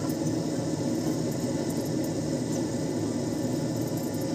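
A steady low mechanical hum at an even level, with no separate clicks or knocks standing out.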